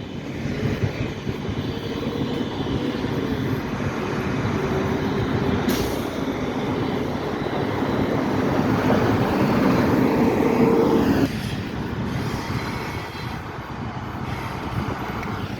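CSX freight train, mostly tank cars, rolling past with a steady rumble and clatter of wheels on rail. A faint wavering whine rides over it, there is one sharp click about six seconds in, and the noise drops abruptly about eleven seconds in.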